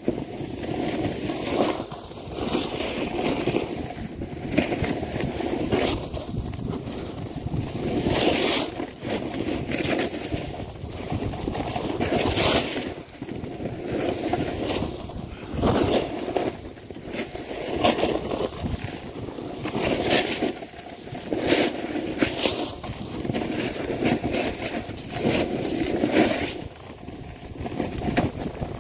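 A snowboard sliding and scraping over firm snow, the hiss swelling with each edge turn about every two seconds, mixed with wind rushing past the microphone.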